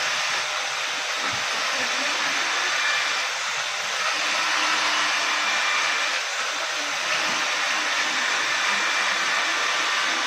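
A steady rushing hiss, like blown air or a small motor running, unchanging in level.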